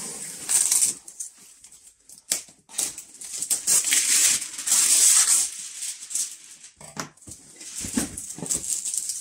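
Cardboard packaging being opened: a knife slitting packing tape, then a long cardboard sleeve scraping and sliding off a box, with a few knocks against the floor.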